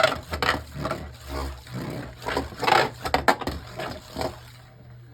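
Beyblade Burst top (Dullahan D5) spinning on the stadium floor with a dense, irregular rattling and clicking, which dies away as it winds down about four seconds in.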